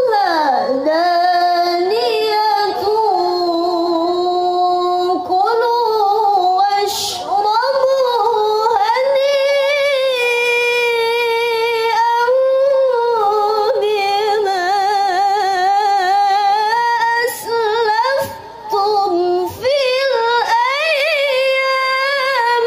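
A young woman's voice reciting the Quran in melodic tilawah style through a microphone: long held notes with vibrato and ornamented runs, broken by short pauses for breath near the end.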